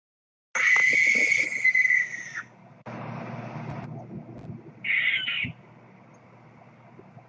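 Recorded barn owl screech: a long, harsh, hissing shriek of about two seconds, then a quieter rasping stretch and one short screech about five seconds in.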